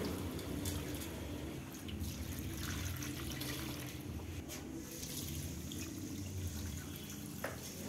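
Water poured from a steel cup into a metal pot of dry Maggi instant noodles and spices, a steady trickle and splash, with a few faint clicks of metal.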